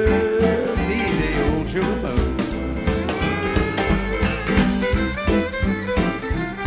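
Western swing band playing live with a steady swing beat; a fiddle takes the lead as the vocal line ends.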